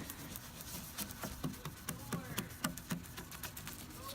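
Toothbrush scrubbing toothpaste over a plastic headlight lens: a run of quick, irregular scratchy clicks.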